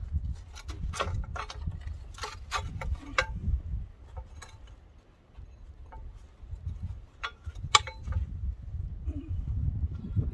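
Scattered metallic clicks and clinks of small steel hardware, the bushings and bolts for fitting tracks onto a skidsteer, being handled and worked into place, over a low rumble.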